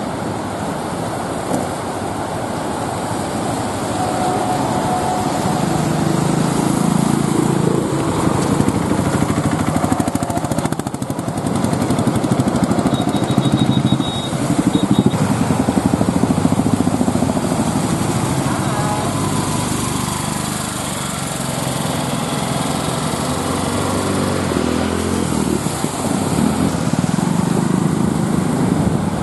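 Small engines of auto rickshaws and motorcycles running as they drive through shallow floodwater, with water splashing around the wheels. The engine sound swells and fades as each vehicle passes.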